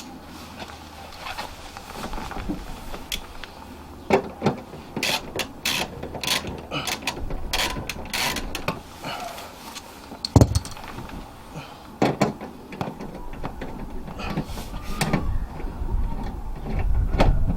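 Socket wrench with a 7 mm socket undoing a small screw in a car's boot lid handle: irregular metallic clicks and clinks, denser in the middle, with a louder knock about ten seconds in.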